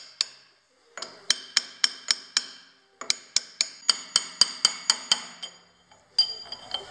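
Hammer striking a steel tube drift to drive the rear spindle bearing of an LT-10M lathe into place. Two runs of quick ringing metallic blows, about four a second, with a pause between them and a couple of ringing hits near the end.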